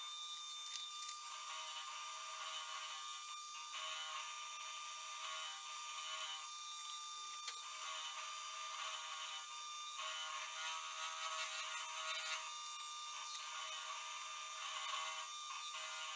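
Milling machine running an end mill through a copper plate, milling out the center slot of a tsuba: a steady motor whine with a cutting noise that swells and eases every couple of seconds as the cutter moves along the slot.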